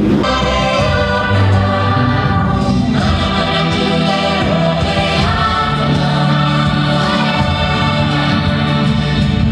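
Background music cutting in abruptly, with layered sustained tones over deep bass notes that change a few times.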